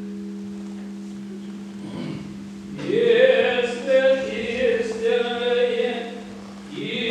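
Church choir singing Orthodox liturgical chant. A held low note fades over the first two seconds, then the voices come in on a new phrase about three seconds in, break off briefly near the end and start again.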